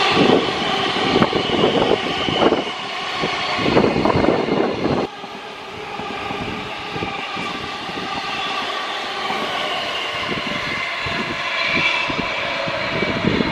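Queensland Rail New Generation Rollingstock electric multiple-unit trains running past, wheels clattering rapidly over the rail joints under a steady high whine. The level drops suddenly about five seconds in, then the clatter carries on more evenly.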